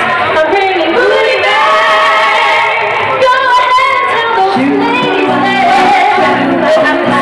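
Three women singing in close harmony with acoustic guitar, amplified through a PA, in a poor-quality recording. Several held notes sound together, with lower notes joining about halfway through.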